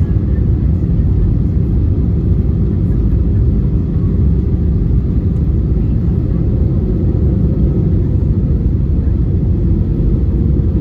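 Steady low rumble of cabin noise inside an Airbus A320-214 on approach to land: its CFM56 engines and the airflow over the airframe, heard from a window seat over the wing.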